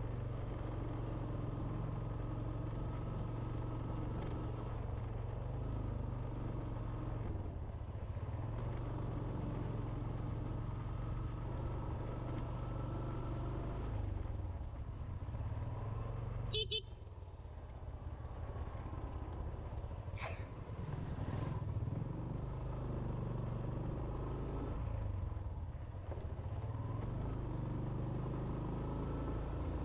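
Small motorbike engine running steadily as it rides along a lane, with a brief horn toot a little past halfway.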